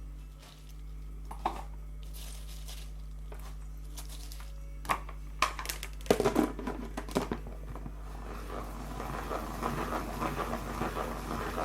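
Kitchen cooking sounds: a few sharp knocks and clicks of utensils against cookware, a quick cluster of them about six seconds in, then a continuous crackling, rustling texture through the last few seconds, over a low steady hum.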